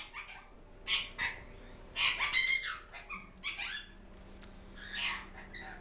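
Pet parrots squawking: a handful of short, harsh calls spaced about a second apart.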